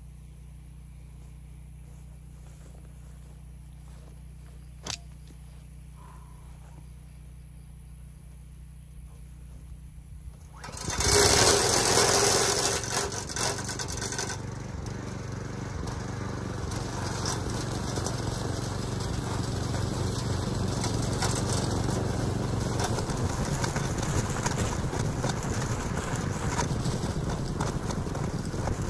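A walk-behind wheeled string trimmer's small engine starts suddenly about eleven seconds in, after a quiet stretch with one sharp click. It is loudest for the first few seconds, then runs steadily while cutting thick grass.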